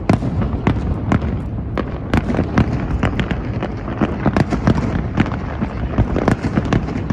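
Aerial fireworks going off in rapid succession, many sharp bangs a second over a continuous low rumble and crackle.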